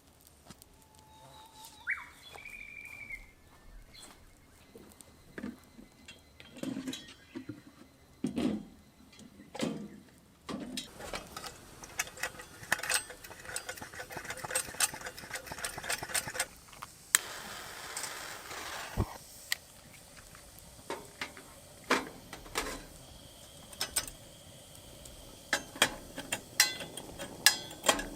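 Clicks, knocks and rattles of objects being handled, with a short bird call about two seconds in.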